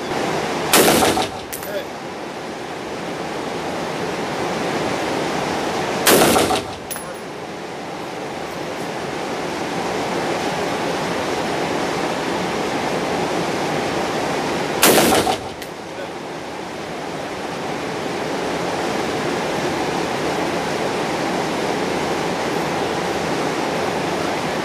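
Three AR-15 rifle shots: one about a second in, one about six seconds in and one about fifteen seconds in, each a sharp crack with a short echoing tail. A steady rushing noise runs underneath.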